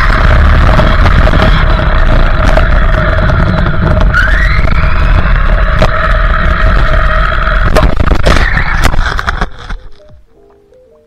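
Laegendary Sonic RC car's brushless electric motor whining at speed, with tyre and wind noise on the onboard camera. The whine rises in pitch about four seconds in as the car speeds up, and there are a couple of sharp knocks. Near the end the car runs into snow, the driving noise drops away, and faint music comes in.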